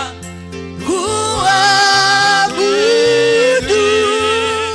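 Slow Swahili worship song: a voice holds long sung notes with vibrato over a backing of sustained bass notes that change in steps.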